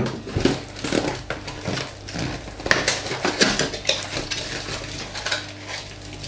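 A small cardboard box being opened by hand: the flaps pulled apart and the packaging handled, with irregular crackles, rustles and small clicks.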